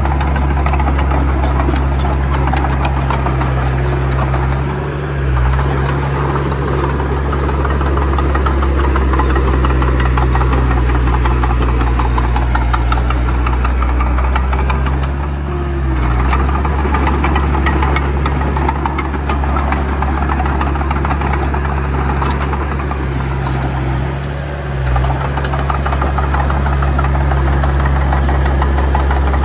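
Bulldozer's diesel engine running steadily under load, its note dipping briefly three times.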